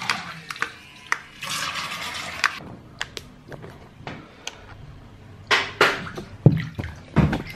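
Bathtub water splashing and churning as a Happy Cow 777-218 micro RC speed boat runs through it, with scattered sharp ticks. A rushing spell comes about a second and a half in, and louder splashes come near the end.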